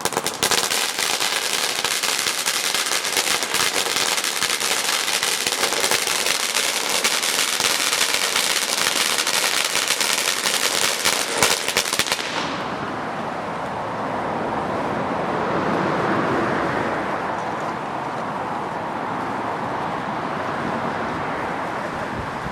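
Consumer fireworks firing: a dense run of rapid sharp crackles and cracks for about twelve seconds. The crackling then stops abruptly and gives way to a steady rushing noise.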